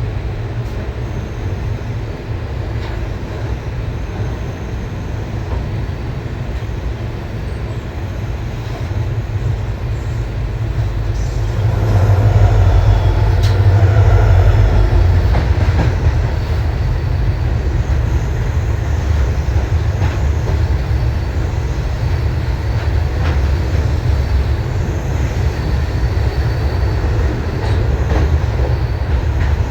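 Indian Railways train running with a steady low rumble that swells louder for a few seconds near the middle.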